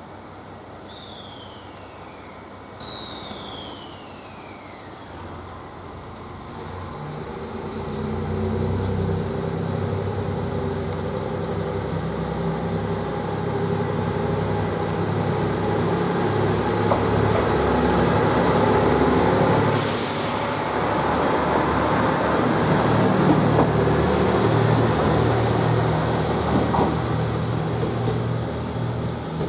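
JR Shikoku 2700-series diesel railcar pulling away, its diesel engine revving up and running loudly under load as the train accelerates. A brief hiss of air comes about two-thirds of the way through.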